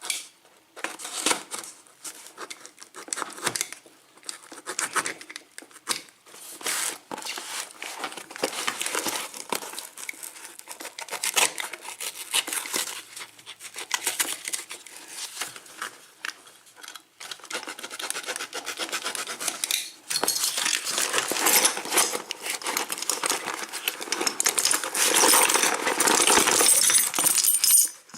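A cardboard package being opened and unpacked by hand: wrapping rustling, crinkling and tearing, with metal padlocks clinking against each other. The crinkling gets denser and louder for the last several seconds.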